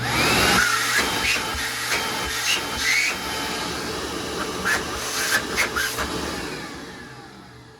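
A new wet/dry vacuum switched on: its motor starts abruptly with a rising whine as it spins up, runs steadily at full speed, then gradually dies away near the end as it winds down.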